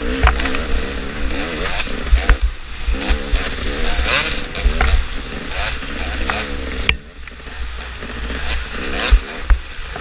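Dirt bike engine revving up and down under changing throttle, with wind buffeting the microphone and a few sharp knocks; the engine drops off briefly about seven seconds in before picking up again.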